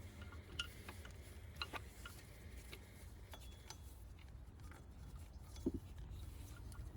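Faint scattered clicks and light taps over a low steady hum, with one sharper knock near the end.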